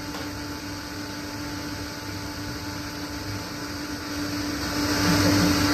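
Steady hiss and hum from the Sony home theater's speakers with nothing playing, growing louder about five seconds in as the volume is turned up.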